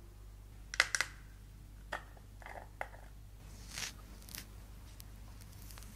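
Close-up ASMR handling sounds: two sharp clicks a little under a second in, then single clicks and a soft scraping rustle, and a brief hiss-like rustle about four seconds in.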